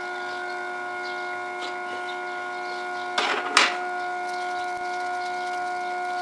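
Electric motor running steadily with a hum of several steady tones. About three and a half seconds in there is a brief rattle ending in a sharp knock.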